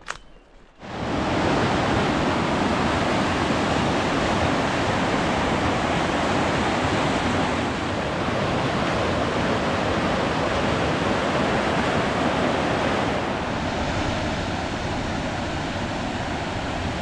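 Fast mountain stream rushing and splashing over boulders, a steady rush of white water that starts about a second in and eases slightly near the end.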